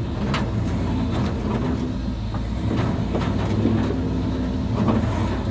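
Turbocharged 5.9 L Magnum V8 in a 1951 Dodge one-ton truck running at steady low revs under light throttle while driving off-road. Scattered knocks and rattles come through as the truck jolts over rough ground.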